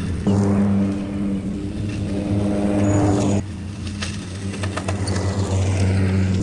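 Battery-electric ride-on mowers, a Greenworks Optimus Z stander and an EGO Z6 zero-turn, running with their blades spinning: a steady electric hum over the whir of the cutting decks. The sound drops suddenly to a quieter level a little over three seconds in.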